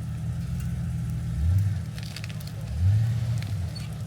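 Off-road Jeep engine working at low speed, swelling in revs twice as it climbs over terrain, with a few sharp cracks about two seconds in.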